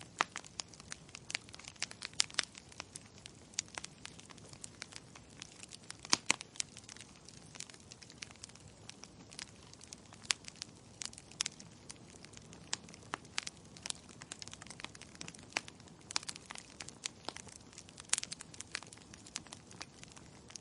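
Wood fire burning in a fireplace, with irregular sharp crackles and pops of the burning logs over a low steady hiss.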